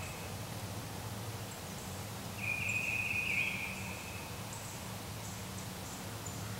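Woodland ambience: a low steady hum, with one high, even call lasting about a second and a half, starting a little over two seconds in. The roosting turkey is not heard gobbling.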